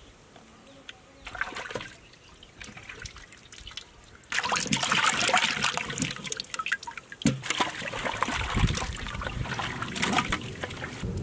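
Potatoes being washed by hand in a metal basin of water: water splashing and trickling as hands stir and lift the potatoes, with occasional knocks. Faint small splashes at first, then the splashing turns much louder about four seconds in.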